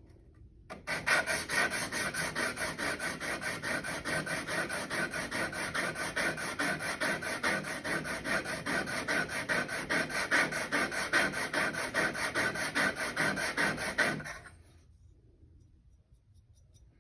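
Steel plane blade being rubbed back and forth freehand on a coarse sharpening abrasive in rapid, even scraping strokes, working the bevel and raising a burr. The strokes start about a second in and stop a few seconds before the end.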